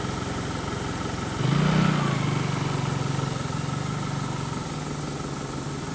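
Vehicle engine running at idle, its note rising about a second and a half in, then holding steady and slowly easing back.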